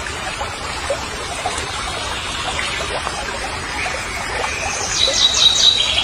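Steady trickling, splashing water noise with small wet squelches from the muddy hole. A high chirping call comes in near the end.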